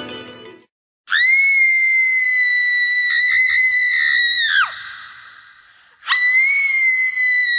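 Two long high-pitched screams, as from riders on a roller coaster: the first held for about three and a half seconds with a wavering in the middle, dropping in pitch as it breaks off; the second starts about six seconds in and is still going at the end.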